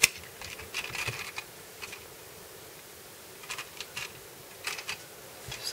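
Scattered light plastic clicks and taps from a small plastic Mini 4WD car being handled: a cluster in the first second or so, then a few more in the second half.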